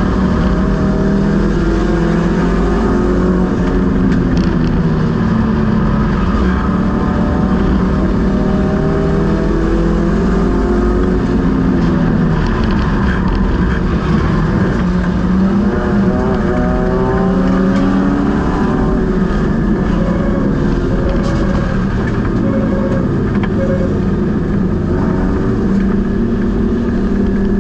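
Stock car race engine heard from inside the cockpit, its pitch repeatedly rising under acceleration and falling as the throttle lifts through the laps, over steady wind and road noise.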